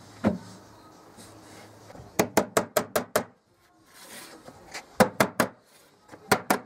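A soft-faced mallet knocking on a flat metal plate laid on a wooden chest-of-drawers top, tapping the freshly glued top panel down onto the carcass. It gives sharp knocks in quick runs of three to six, after a single knock at the start.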